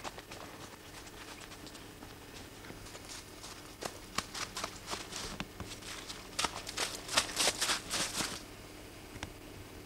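Footsteps crunching and scuffing in snow: quiet for the first few seconds, then irregular crunches and scrapes that come thicker and louder from about three seconds in and stop shortly before the end.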